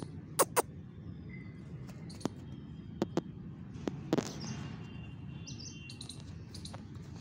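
Birds chirping in the background over a steady low rumble, with a few sharp clicks, the loudest two about half a second in.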